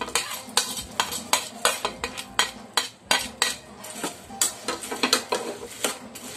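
A spoon scraping and clinking against a stainless steel pot in quick, irregular strokes, about three a second, as fried boondi are pushed in and stirred through warm sugar syrup.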